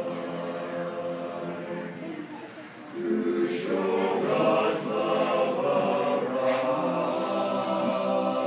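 Men's a cappella barbershop chorus singing held chords in close harmony; the voices drop briefly, then come back louder about three seconds in.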